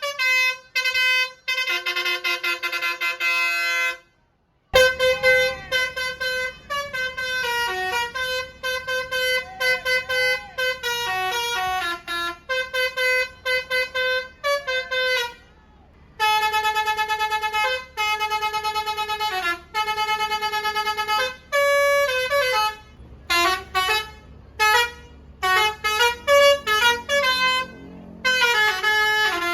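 Telolet basuri bus horn playing tunes: runs of pitched notes, some held for a second or more, some short, a few sliding up and down in pitch. There is a brief gap about four seconds in, after which a low steady rumble runs underneath, and the notes come in quicker short blasts near the end.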